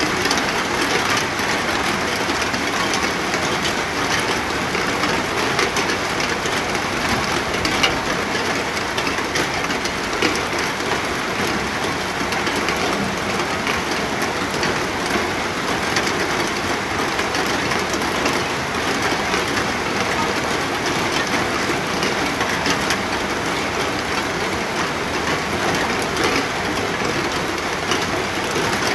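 Steady rain falling, an even hiss with many sharp drop hits scattered through it.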